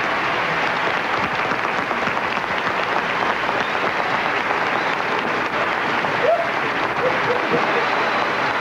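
Studio audience applauding steadily, with a few short cries over the clapping in the second half.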